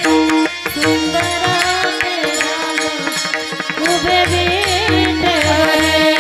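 Marathi kirtan music: a woman's sung melody over a steady harmonium, with deep pakhawaj drum strokes and small brass hand cymbals (taal) clashing in time. The voice bends in pitch about four seconds in.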